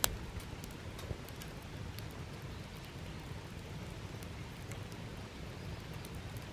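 Wood campfire burning, crackling with a sharp pop at the start and scattered fainter snaps over a steady low rumble.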